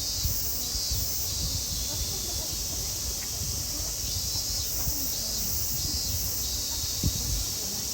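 A steady high-pitched insect drone, with faint distant voices and a low rumble underneath.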